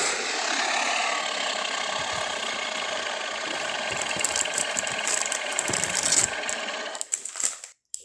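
A long, harsh, rattling dinosaur-monster roar sound effect, made from Torvosaurus sounds. It holds steady for about seven seconds, then breaks up into a few short rasps and stops.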